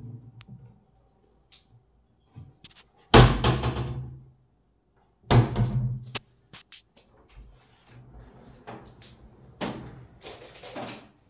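Large sliding wardrobe doors pushed along their track and banging against the frame: two loud bangs about two seconds apart, each with a short rumbling ring, then softer knocks and rolling near the end.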